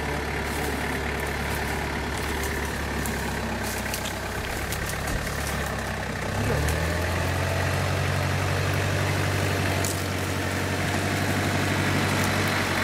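Off-road trial truck's engine running steadily at low revs. About six and a half seconds in the revs step up, and it holds at the higher engine speed.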